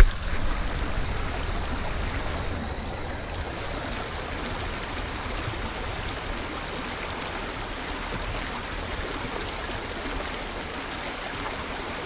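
Shallow mountain stream running over rocks: a steady rush of flowing water.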